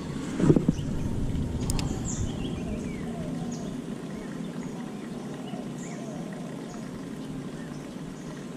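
A brief handling thump as a spinning rod is cast, about half a second in, then a sharp click a second later. Birds chirp faintly over a steady outdoor background.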